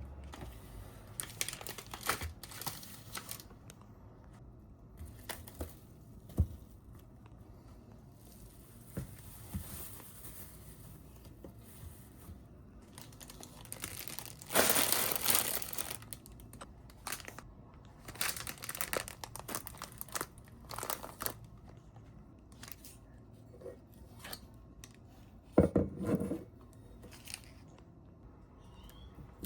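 Packaging being handled: intermittent crinkling and tearing, the longest stretch about halfway through, with a sharp knock near the end.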